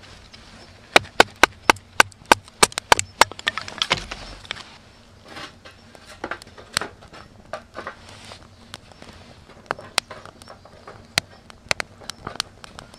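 Small sticks cracking and knocking as they are worked with a knife and laid on a campfire: a quick run of about a dozen sharp wooden cracks, roughly four a second, in the first few seconds, then scattered single cracks.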